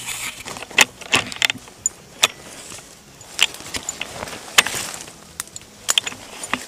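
Irregular sharp clicks and short rattles of an airsoft rifle and gear being handled and shifted right next to the gun-mounted camera, some sharp knocks standing out above the rest.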